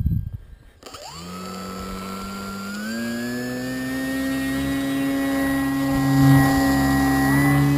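A radio-controlled trainer model airplane's motor and propeller start suddenly about a second in and climb in pitch as the throttle opens for takeoff, then run at a steady high whine.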